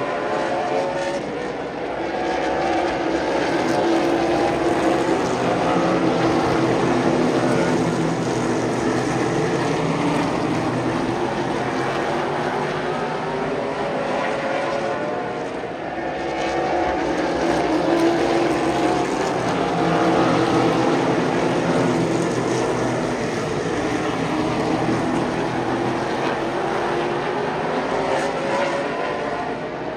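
A field of Super Late Model stock cars racing around a short oval track, their V8 engines blending together. The sound swells and fades in a cycle of about fifteen seconds as the pack laps past and away.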